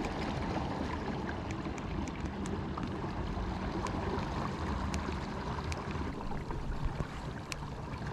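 Kayak moving on a lake: a steady low rumble of water and wind noise, with scattered faint clicks.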